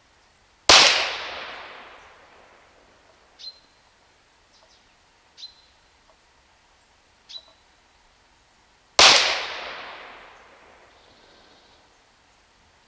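Two shots from a .22 PCP air pistol built on a Huben K1 action, about eight seconds apart, each dying away over a couple of seconds. Three faint short clicks come between the shots.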